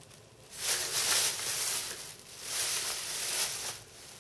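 Plastic shopping bag rustling and crinkling as it is handled, in two bursts of about a second each.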